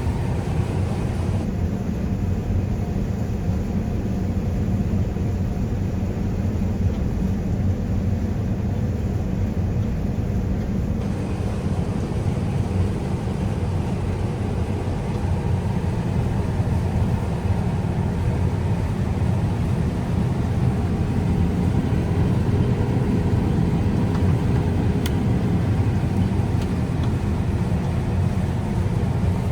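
John Deere S760 combine harvester running steadily while harvesting soybeans, a continuous low drone of engine and threshing machinery.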